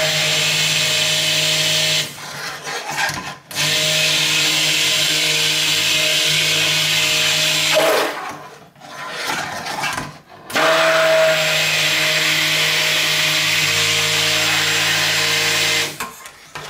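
Electric stick blender running in three spells of a few seconds each, with short pauses between, blending oils in a pot for soapmaking.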